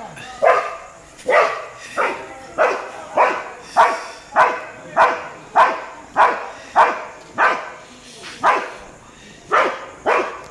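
A Labrador barking repeatedly and aggressively at street dogs. It gives a long run of loud, sharp barks, nearly two a second, with a couple of longer gaps near the end.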